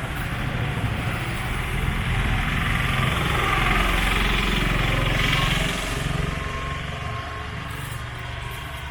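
A motor vehicle's engine running steadily with a low rumble. It grows louder in the middle, then fades away.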